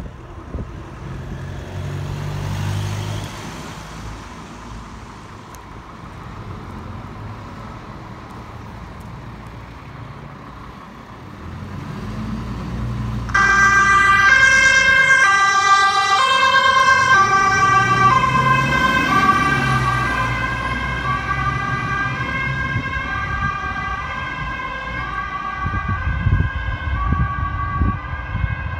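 A Scania fire engine's diesel engine runs as the truck pulls out. About 13 seconds in, its two-tone siren switches on abruptly, alternating between a high and a low tone about every 0.7 seconds, and it slowly grows fainter as the truck drives away, marking an emergency call-out.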